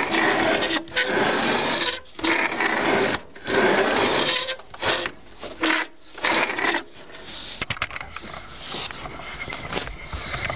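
Movable wooden bed of a homemade circular-saw bench pushed back and forth along its angle-iron frame, a rubbing scrape in several runs of about a second each. After about seven seconds it gives way to quieter handling clicks and knocks.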